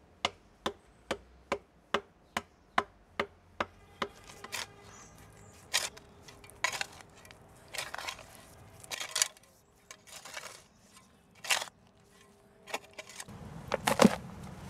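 A claw hammer striking a wooden board, about ten blows in a steady rhythm of a little over two a second. After them come scattered scrapes and scuffs of digging, and near the end a louder rattling burst as soil is tipped out of a wheelbarrow.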